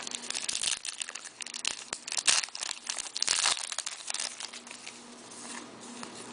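Plastic-foil hockey card pack wrapper crinkling as it is handled and torn open: a quick run of sharp crackles for about four seconds, then a fainter rustle.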